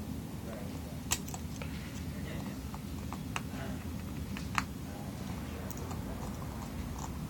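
Small, sharp clicks and taps of a small screwdriver working on the tiny screws that hold an iPhone 4's motherboard down, a few louder ticks standing out over a steady low hum.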